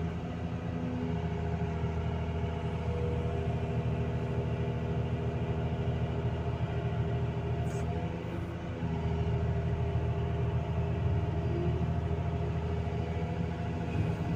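Excavator's diesel engine running steadily under digging load, dipping briefly a little past halfway.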